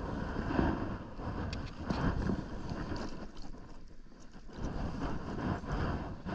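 Wind buffeting a body-worn camera microphone, rising and falling unevenly, over water sloshing around hands and wading boots in a shallow river.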